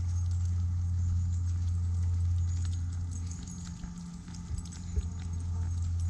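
Footsteps on an asphalt road at a walking pace, over a steady low hum. There is one sharper tick about five seconds in.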